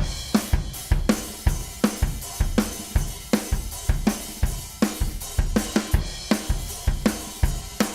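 Drum kit playing a steady groove, with kick drum, snare and cymbals hitting in an even rhythm.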